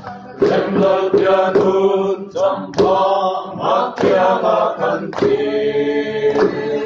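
Small group of men and women singing a Mizo song together, holding long notes, with sharp hand claps keeping a slow beat about once every second.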